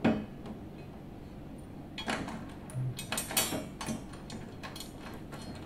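A wall-mount bracket being fitted onto the back panel of a TV by hand: a sharp knock at the start, then a run of clicks and light rattling taps from about two seconds in.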